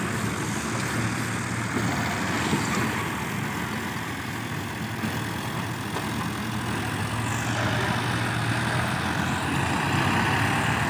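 Two diesel tractors, one an NH Dabung 85, running hard side by side while dragging rear levelling blades through sandy soil: a steady engine drone that grows a little louder near the end.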